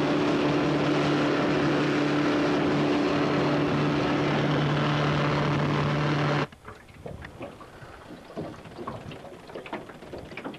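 Small boat's outboard motor running steadily at speed, with water rushing and wind over it. About six seconds in it gives way abruptly to much quieter, irregular water lapping and small splashes against the hull as the boat moves slowly.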